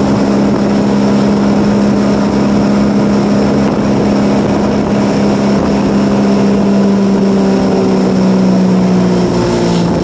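Towboat engine running steadily at towing speed, with the rush of water and wind. The engine's pitch sags slightly over the last few seconds.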